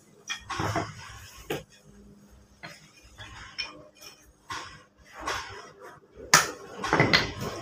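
Lumps of wood charcoal clinking and clattering as they are handled and dropped into small plastic bags, with plastic bags rustling. There is a sharper clatter about six seconds in.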